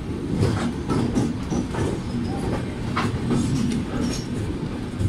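Passenger train coach rolling slowly out of a station: a steady low rumble with irregular sharp clicks as the wheels pass over rail joints.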